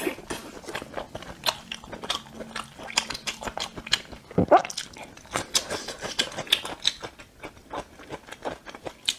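Close-miked chewing of food: wet smacking and crunching mouth sounds in an irregular run of short clicks, with a louder crunch about four and a half seconds in.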